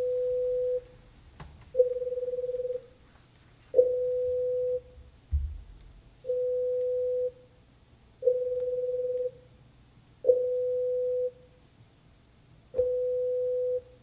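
A hearing-test demonstration of amplitude-modulated pure tones, played in sets of three at one steady middle pitch. Each tone lasts about a second, with a second's gap between tones. The middle tone of each set flutters and the outer two are steady, and the flutter grows shallower with each repetition. Each tone starts with a small pop, and there is a single low thump about five seconds in.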